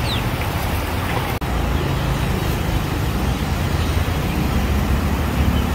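Steady sizzle of battered potato wedges deep-frying in large woks of hot oil, over a low rumbling hum and the hubbub of a busy market.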